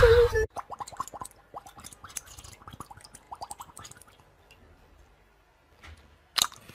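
Small splashes of shallow water, quick plops and gurgles for about four seconds, several with a quickly falling pitch, then quiet apart from one sharp click near the end.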